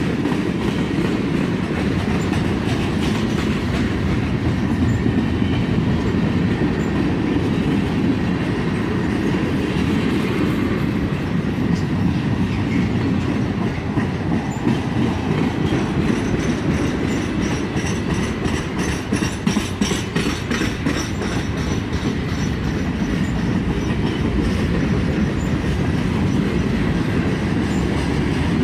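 Freight cars of a passing freight train rolling by: a steady low rumble of steel wheels on rail with clickety-clack from the wheels crossing rail joints, a burst of sharper clicks about halfway through.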